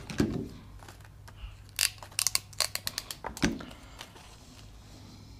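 Small tools and parts handled on a workbench: a quick run of sharp clicks and light rattles, with a duller knock near the start and another about three and a half seconds in.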